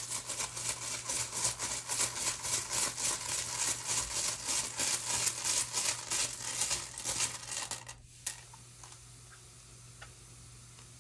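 Runes being shaken and stirred in a cloth drawstring bag: a quick run of clicking and rattling, about five a second, that stops about eight seconds in, with one last click just after.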